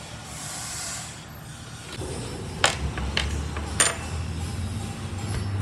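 Three sharp metallic clicks about half a second apart, from metal parts of a Makita 9557NB angle grinder being handled during an armature change. A soft hiss comes in the first second, and a low steady hum runs under the clicks.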